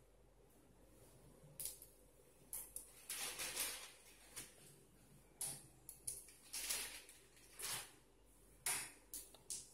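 A plastic snack packet crinkling in irregular bursts as a hand rummages in it for food.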